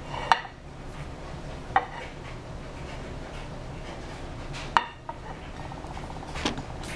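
A dinner plate being moved and turned on a tiled countertop, clinking sharply about four times over a faint steady low hum.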